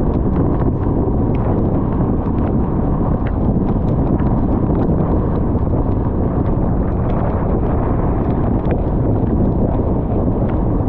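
Steady road rumble of a car driving on a wet highway, heard inside the cabin, with scattered light ticks of raindrops hitting the car.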